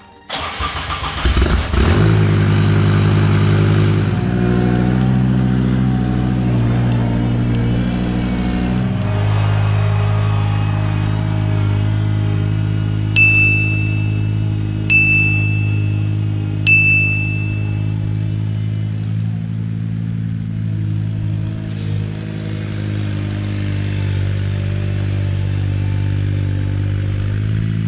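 Ventrac compact tractor's engine running steadily as the machine drives across a steep grassy slope, its note dropping a little about nine seconds in. About halfway through, three short high-pitched beeps sound in a row, evenly spaced.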